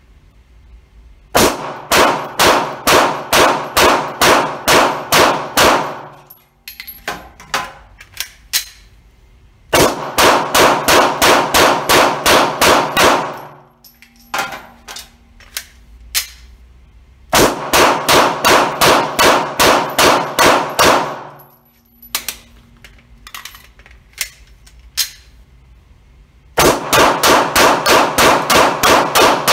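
Gen5 Glock 17 9mm pistol fired rapidly in four strings of about ten shots each, roughly three shots a second. Between the strings come a few clicks and clacks as magazines are changed.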